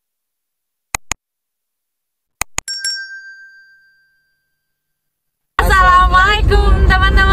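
Subscribe-animation sound effects: a double mouse click about a second in, then another double click and a bright notification-bell ding that rings out and fades. Loud voices start abruptly about two seconds before the end.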